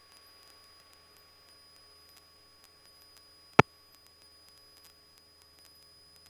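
Faint steady electronic hum on the aircraft's intercom/radio audio feed, broken by one sharp click a little past halfway through.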